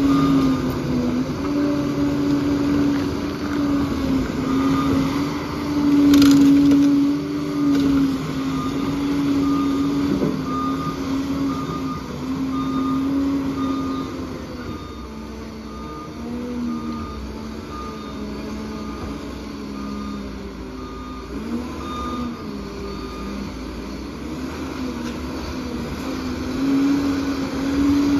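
Liebherr 746 crawler dozer's diesel engine working under load, its pitch rising and falling as the load changes. A reversing alarm beeps steadily through the first half and fainter later, with one loud knock about six seconds in.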